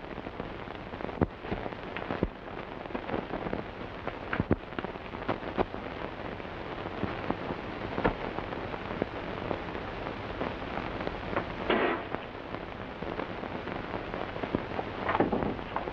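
Steady hiss and crackle with scattered clicks and pops, the surface noise of an early optical film soundtrack. A brief louder burst comes about three-quarters of the way through.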